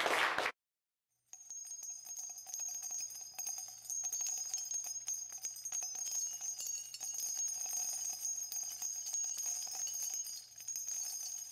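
Concert crowd noise cuts off about half a second in; after a short silence, a steady jingling of small bells begins.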